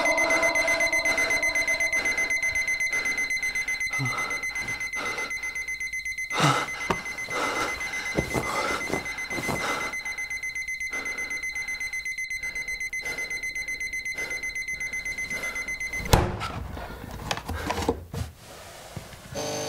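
Electronic alarm clock beeping, a high steady tone in rapid pulses, which cuts off abruptly with a knock about sixteen seconds in as it is switched off. Short rustles and breaths are heard alongside.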